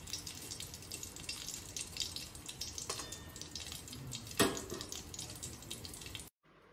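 Mustard oil sizzling and crackling in a wok as a tempering of nigella seeds and slit green chillies fries in it, with two short knocks, the louder about four and a half seconds in. The sizzle cuts off abruptly just before the end.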